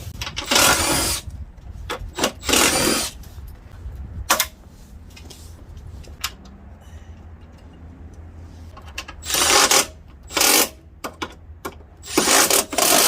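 Handheld power tool running the 12 mm door-hinge bolts in short bursts, about six of them, each half a second to a second long, with a few metallic clicks between.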